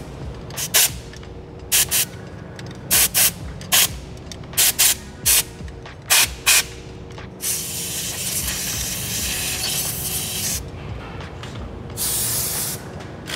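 Compressed-air blow gun: about a dozen short hissing blasts, then one long blast of about three seconds and a shorter one near the end, blowing dirt away from around the CP4 pump's quantity valve so none gets into the fuel system.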